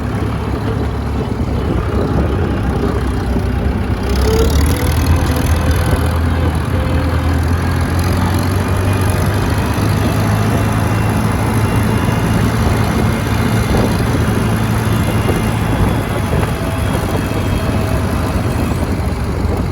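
Case 730 tractor engine running steadily while pulling a rotary mower. A broad rushing hiss grows over it from about four seconds in.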